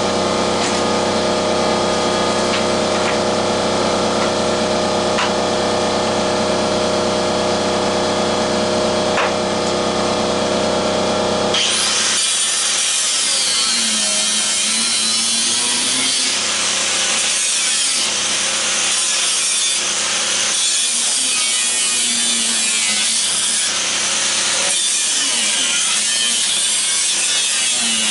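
A power tool's motor running steadily, then about twelve seconds in a harsh, loud grinding noise as it cuts into metal, the motor's pitch dipping several times under load.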